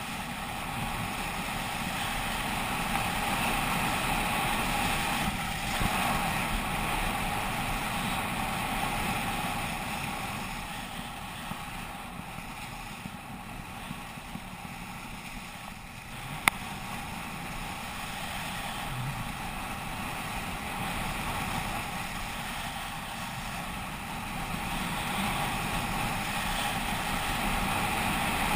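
Wind rushing over an action camera's microphone and the steady hiss of sliding down packed, groomed snow, louder at the start and near the end. A single sharp click about halfway through.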